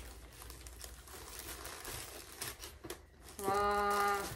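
Rustling and crinkling as a new black fabric bag and a small pouch are handled and opened. Near the end, a woman's voice holds one steady note for about a second, louder than the rustling.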